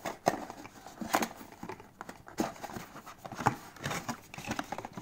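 Hands rummaging in a cardboard box of packed accessories: light rustling of packaging with scattered small clicks and knocks, about one a second.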